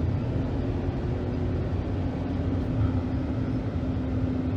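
2013 Ford F-150's 3.5-litre V6 under hard acceleration, heard from inside the cab as a steady drone with road noise. Under this load cylinder 2 misfires, which the mechanic traces to a failing ignition coil.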